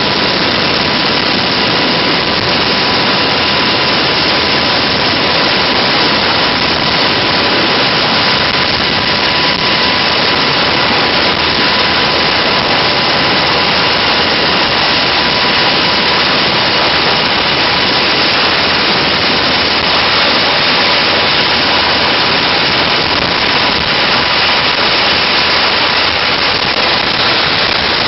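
Steady, loud turbine and rotor noise of a UH-60 Black Hawk helicopter's twin turboshaft engines, heard from the open cabin while it hovers low over water, with a faint steady whine running through it.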